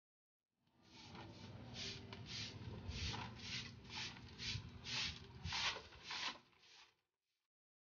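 Soft grass broom sweeping concrete into a plastic dustpan: about fourteen quick brushing strokes, roughly two a second, starting just after half a second in and stopping about a second before the end.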